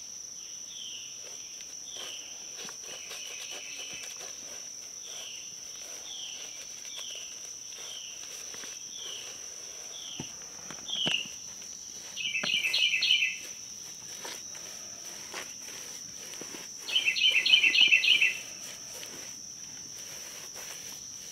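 A steady high insect buzz, with a bird singing a run of short down-slurred notes for the first half, then two loud rapid chirping bursts about twelve and seventeen seconds in. Faint scraping and tapping of a paint brush working sealer onto concrete blocks sits underneath.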